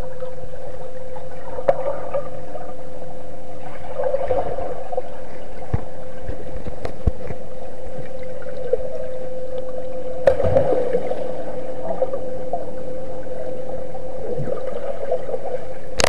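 Swimming pool heard underwater: a steady hum with muffled sloshing, and a few dull knocks and splashes from children swimming and kicking nearby.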